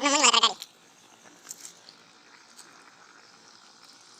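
A goat bleats once: a short, quavering call about half a second long, followed by a faint steady background hiss.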